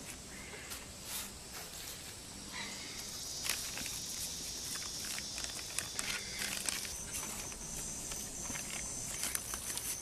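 Plastic bag liner crinkling and rustling with light scattered clicks as gloved hands pack wet hypertufa mix into a wooden mold. A steady high-pitched insect drone sits behind it from a few seconds in.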